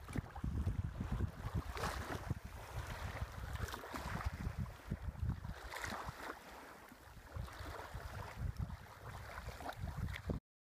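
Small waves lapping at a lakeshore, with gusty wind buffeting the microphone. The sound cuts off abruptly near the end.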